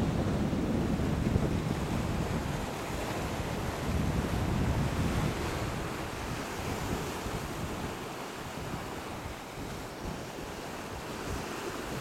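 Wind buffeting the microphone outdoors: heavy low gusts in the first half, easing to a lighter steady rush after about five seconds.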